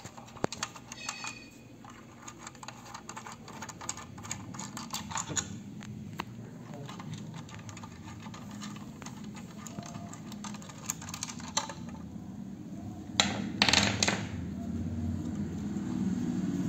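Hands handling a bare motherboard: irregular small clicks, taps and rustles of fingers and plastic against the board. A couple of louder knocks come about 13 seconds in, then a low steady rumble builds toward the end.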